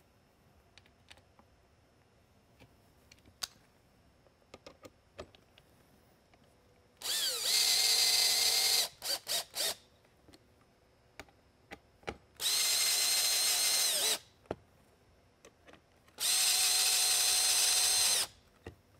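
Cordless drill/driver running in three bursts of about two seconds each, driving the three screws that fasten the LED circuit board to the mounting posts of a plastic beacon base. Between the bursts come a few quick trigger blips and light clicks of handling.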